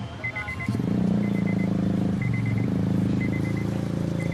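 Honda Accord V6 engine running, getting louder about a second in, on a car that is misfiring with the check engine light on. A short four-pip beep repeats about once a second over it.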